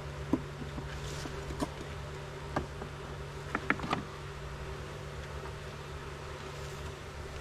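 A swarm of honeybees buzzing in a steady hum around an open hive. A few short clicks and knocks, several of them close together about three and a half to four seconds in, come from the wooden hive parts being handled.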